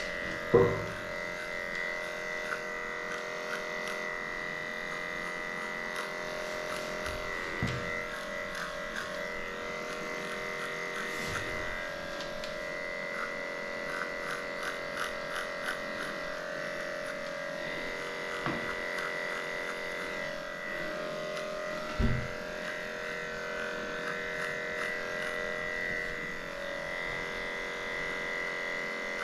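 Electric dog grooming clippers running with a steady high whine while shaving a matted coat. A run of quick ticks in the middle, and a few knocks, the loudest near the start and about two-thirds of the way through.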